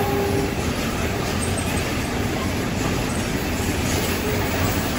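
Freight train of container wagons rolling past close by: a steady noise of wheels running on the rails, with a brief high tone right at the start.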